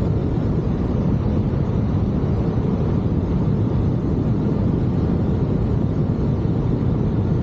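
Steady wind rushing over the microphone while flying under an open parachute canopy at altitude.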